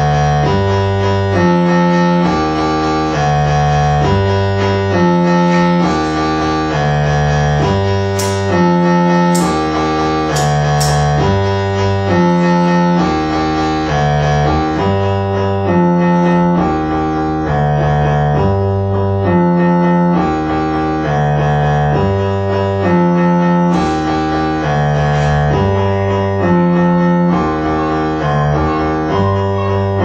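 Electronic music played live on a modular synthesizer: a looping sequence of steady pitched notes over a stepping bass line. A few short, sharp high ticks cut in about a third of the way through and again later.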